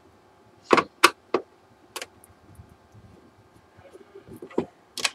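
A handful of sharp clicks and knocks from hands handling a computer monitor's plastic back and stand: three in quick succession about a second in, one more a little later, and two near the end.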